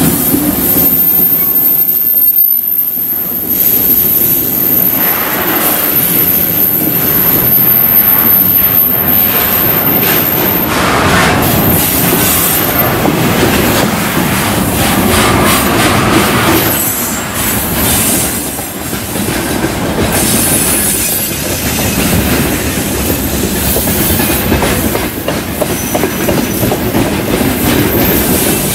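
Freight train of container flats and open-top wagons rolling past close by: a loud, steady rumble and clatter of steel wheels on the rails, with wheels squealing at times.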